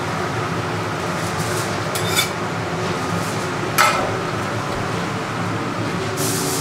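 Dishes and utensils clinking in a busy restaurant kitchen: a few sharp clinks, the loudest about four seconds in, over a steady kitchen background noise.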